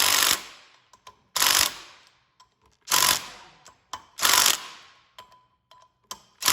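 Ratchet wrench clicking in short runs, about one stroke every second and a half, as bolts are snugged down by hand.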